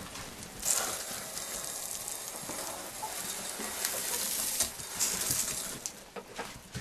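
Dry chicken feed pouring, a steady rattling hiss with scattered clicks that eases off near the end.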